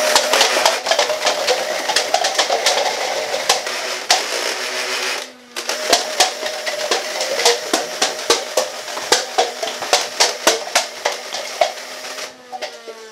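Nerf Vortex Nitron disc blaster, modified to run its stock motor on a 3S battery, firing full-auto: the flywheel motor whines steadily under a rapid, uneven run of clicks as discs fly and plastic cups clatter down. The sound breaks off for a moment about five seconds in.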